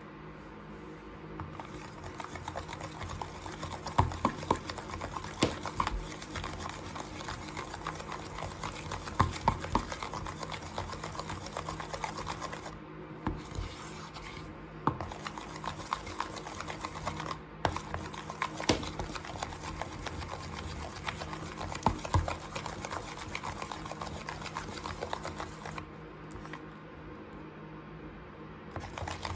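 Thick shampoo-and-baking-soda slime stirred and pressed with a plastic spoon in a plastic box: a steady run of sticky, wet crackles and clicks, with sharper knocks of the spoon against the box now and then.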